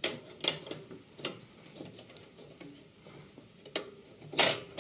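Scattered metallic clicks and clinks as the slackened blade of a Charnwood B250 bandsaw is worked off its wheels by gloved hands. Near the end comes one louder, longer scrape of about half a second.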